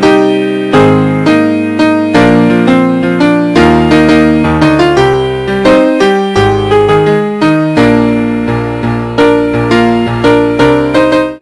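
Piano music: chords and a melody struck about twice a second, each note ringing and fading, cutting off abruptly near the end.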